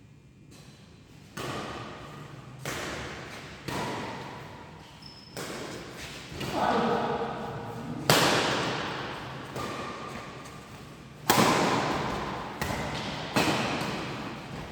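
Badminton rackets hitting a shuttlecock in a rally: about eight sharp, irregularly spaced smacks, each echoing in a large hall, with a voice calling out briefly in the middle.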